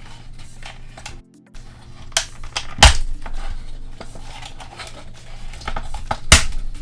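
Clicking and clattering of a plastic action figure and its packaging being handled, with two sharp, louder clicks, one about halfway through and one near the end.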